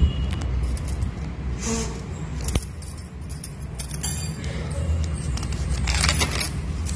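Paper handling of a notebook: a few small clicks, then a page rustling as it is turned about six seconds in, over a steady low background rumble.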